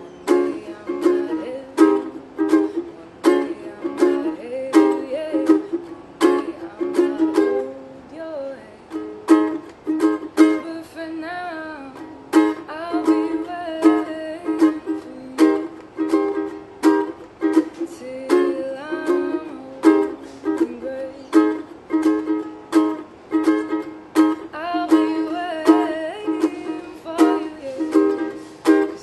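A woman singing to her own ukulele, strummed in a steady rhythm.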